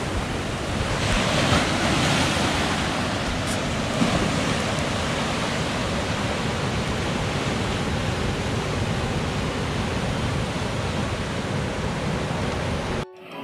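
Sea waves washing up over sand and rocks at the shoreline: a steady rushing surf that cuts off abruptly just before the end.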